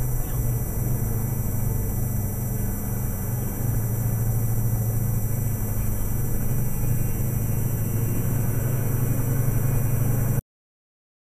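Steady low engine and road rumble heard inside a lorry's cab while driving at highway speed, with a faint high electronic whine above it. The sound cuts off abruptly near the end.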